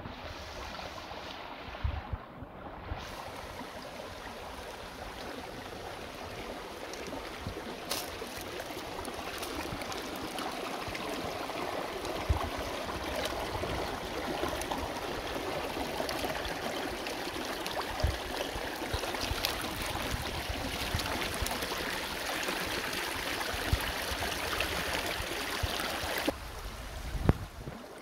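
Shallow rocky stream running over stones, a steady rushing with a few short, dull thumps.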